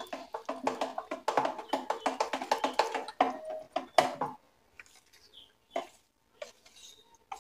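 A hand squelching and slapping through thick semolina-and-curd batter in a plastic bowl, stirring it fast for about four seconds, then slower with only a few soft squelches.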